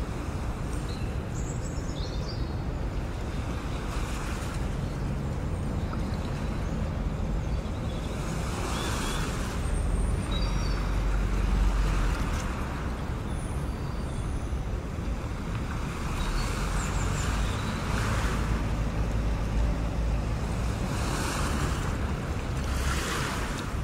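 Steady outdoor sea ambience: wind rumbling on the microphone, with waves washing in swells every few seconds.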